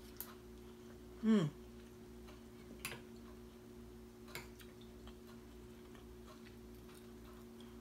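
A metal spoon clinking lightly against a ceramic bowl a few times while congee is scooped and eaten, with a short falling 'mm' from the voice about a second in. A steady low hum runs underneath.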